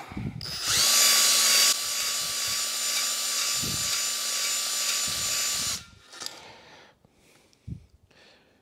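Cordless drill spinning a three-legged cylinder hone in an oiled bore of a Rover V8 block, the stones rubbing the bore to clear surface rust. It runs steadily for about five seconds, loudest in the first second, then stops suddenly; a few light knocks follow.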